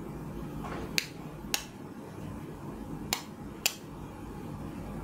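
Four sharp clicks in two pairs, each pair about half a second apart, over steady low background noise.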